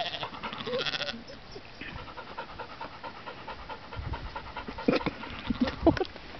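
A sheep bleats once in the first second, a wavering call. Then brown hair sheep nibble, chew and snuffle at a hand held right by the microphone, with a run of sharp clicks and breathy snorts about two thirds of the way through.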